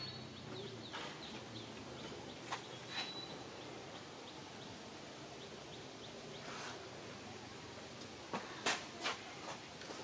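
Outdoor background noise with a string of faint, short, high chirps and a few sharp clicks: two about two and a half seconds in, and a quick cluster of three near the end.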